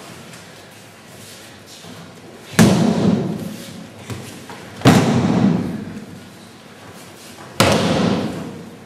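Judoka being thrown onto tatami mats: three hard landings with the slap of the breakfall, each ringing on for about a second in the large hall, plus a lighter knock between the first two.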